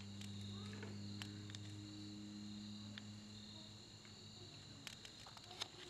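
Faint steady trilling of insects in the garden, with a low hum underneath that fades out about four seconds in.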